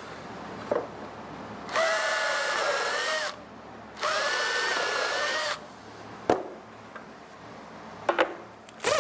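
Cordless drill boring pilot holes in pine trim boards, pre-drilling so the pine doesn't split: two runs of about a second and a half each, the motor whine rising to speed and then holding. A few sharp knocks of wood and tool handling come between and after the runs, several near the end.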